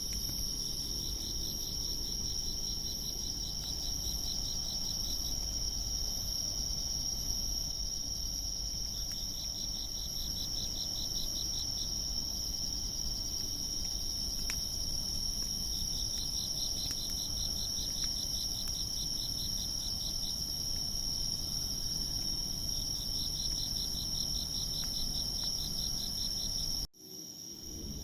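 Insects calling, crickets among them: one steady high trill throughout, and a second, rapidly pulsing trill that comes in runs of a few seconds, four times. A few faint clicks are scattered through.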